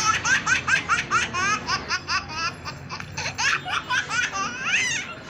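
A high-pitched laughter sound effect: a fast run of short, rising laughing syllables, several a second, with a longer rising squeal near the end.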